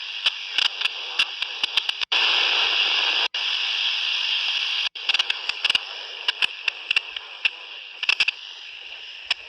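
Walkie-talkie receiver (Quansheng UV-K5 / Retevis RA79) on the 27 MHz CB band with the squelch open, giving steady radio hiss and frequent sharp static crackles. About two seconds in, a louder rush of noise comes up for roughly three seconds, starting, breaking and ending with sudden cutouts.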